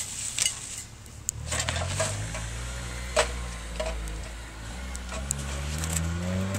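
Scattered light clinks and knocks, the sharpest about three seconds in, over the low hum of a motor vehicle's engine that rises in pitch near the end.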